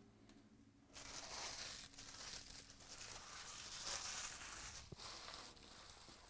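Plastic trading-card pack wrapper being torn open and crinkled, starting about a second in and dying down near the end.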